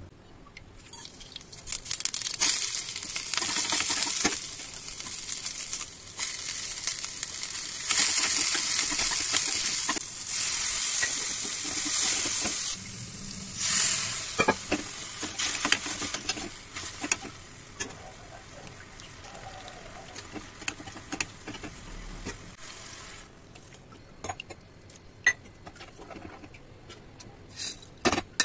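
Chopped vegetables sizzling in a hot wok while being stirred with a wooden spatula. The sizzle comes in loud surges for about the first half, then settles quieter with scattered clicks.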